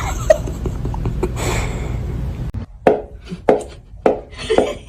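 A steady low hum, then from about three seconds in a run of sharp knocks or taps at roughly two a second.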